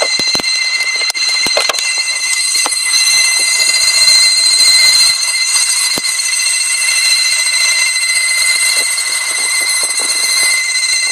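Strange high-pitched squeal from a BMW E46 316i: one steady, piercing tone with overtones that runs on without a break, with a few sharp clicks in the first three seconds.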